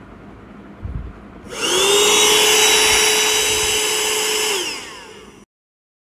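Cordless stick vacuum cleaner switched on: its motor spins up with a rising whine, runs steadily with a high whine over a rush of air, then winds down with a falling whine near the end. A soft knock comes just before it starts.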